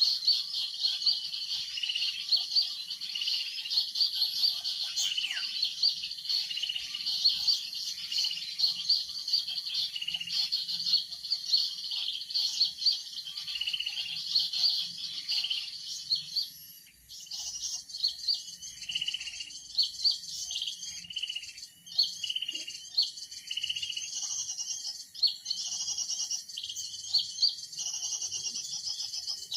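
Dense, continuous chirping of small songbirds, rapid high notes repeating without a break. About halfway through, the calls change to a faster, higher trill.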